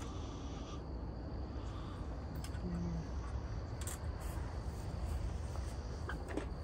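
Crickets chirping steadily in the background over a low, steady rumble, with a couple of faint clicks.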